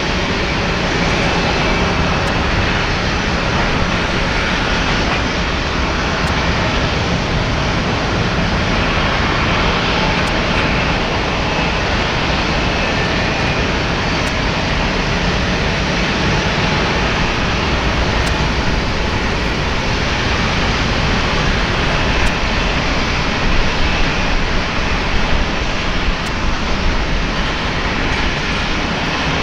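Boeing 787-9 with Rolls-Royce Trent 1000 turbofans taxiing at low thrust: a steady rushing engine noise with a faint high whine.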